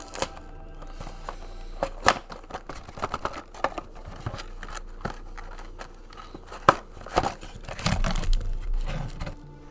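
Crinkling, tearing and crackling packaging as a Yu-Gi-Oh trading card box is opened by hand, in irregular sharp snaps with a heavier rustle near the end.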